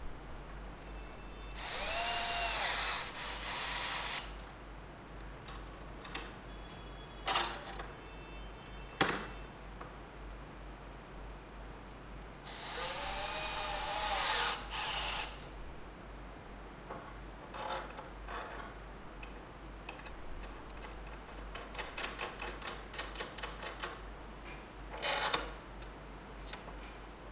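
Cordless drill run twice in bursts of two to three seconds, its motor pitch rising and then falling, with the bit boring into a steel bracket. In between and afterwards come sharp metallic clicks and clinks of steel parts being handled.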